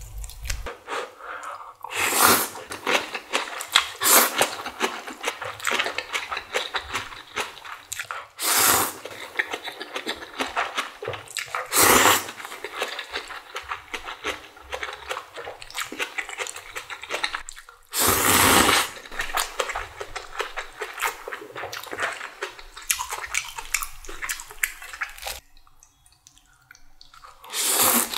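A person eating instant ramen noodles with bean sprouts close to the microphone: wet chewing and smacking throughout, broken by a louder slurp of noodles every few seconds, about six in all.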